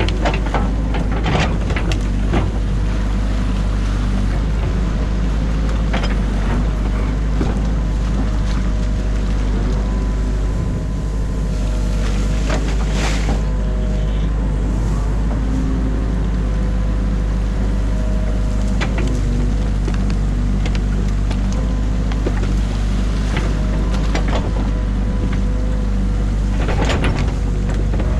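Excavator diesel engine running steadily, heard from inside the cab, with the bucket knocking and scraping several times as it digs through silt and mud.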